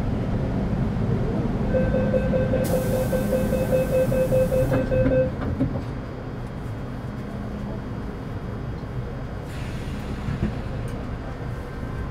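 Interior running noise of an MTR Metro Cammell M-Train pulling away, with a steady whine from its GEC GTO chopper traction control that stops about five seconds in, a hiss in the middle of the whine, and then quieter rolling.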